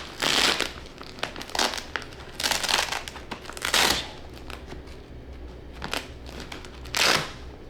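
Velcro strips on a chair's fabric cover being pulled apart and pressed back, with the fabric rustling: several short ripping bursts, the last one near the end.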